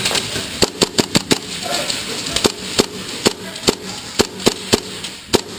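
Airsoft gunfire: a dozen or so sharp cracks at irregular intervals from shots and BBs striking nearby surfaces, starting about half a second in.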